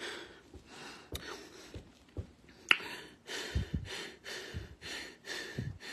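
A woman breathing heavily in quick, even puffs, about two a second, from about three seconds in; a couple of sharp clicks come before that.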